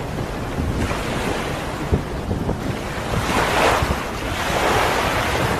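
Sea water splashing and surging, with wind buffeting the microphone as a low rumble. The rush of water grows louder about three seconds in.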